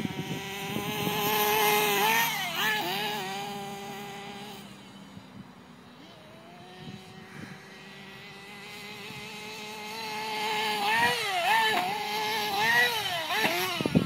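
Small combustion engine of a radio-controlled car running at speed, its pitch wobbling quickly up and down with the throttle. It fades away in the middle as the car moves off, then grows louder again as it comes back.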